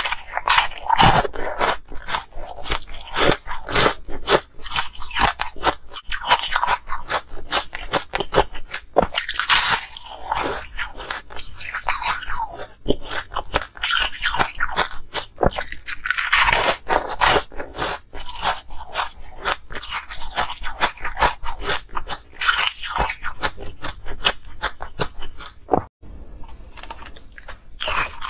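Close-miked biting and chewing of hard ice: rapid, dense crunches of ice breaking between the teeth, with short pauses between bites.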